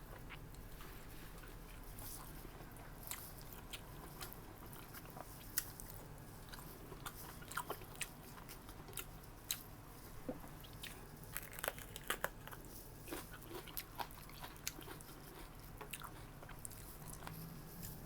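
Close-miked eating: a person chewing and biting food, with irregular soft crunches and mouth clicks, sometimes several in quick succession, over a low steady hum.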